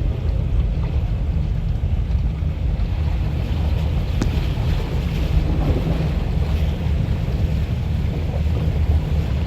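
Heavy rain falling as a steady hiss, under a constant low rumble of wind buffeting the microphone.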